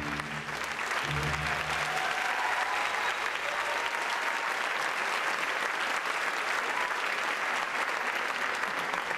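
Audience applauding steadily at the close of a ballet solo. The last notes of the ballet music die away within the first two seconds.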